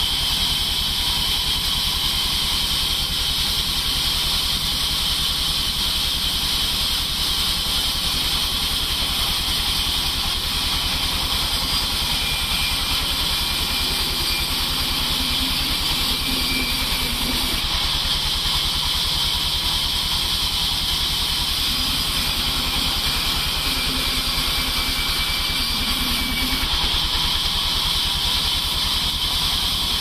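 Large band sawmill running steadily, its blade cutting lengthwise through a log with a constant high hiss over the low, even hum of the drive motor.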